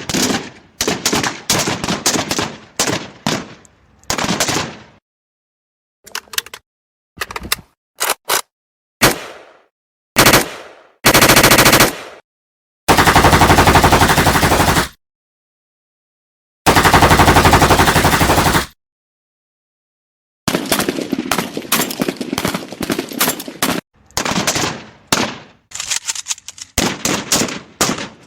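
AK-47 rifle firing: short bursts of automatic fire with echoing tails, a few single shots, and two long sustained strings of full-auto fire of about two seconds each, separated by moments of silence.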